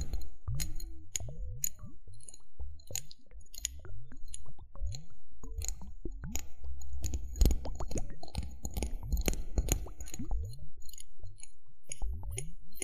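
Drinking straws handled close to the microphone, giving a stream of small clicks and short squeaky rubbing sounds.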